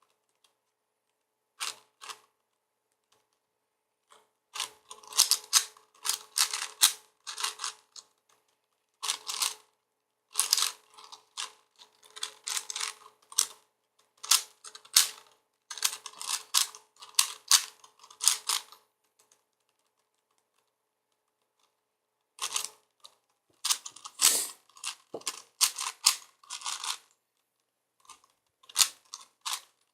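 4x4x4 Rubik's cube being turned by hand during a solve: rapid plastic clicking of the layers in runs of a few seconds, broken by short pauses and one longer pause about two-thirds of the way through.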